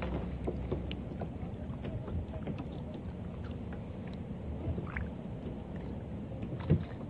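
Open-water ambience around a kayak: a steady low rush of wind and water, with scattered light knocks and clicks.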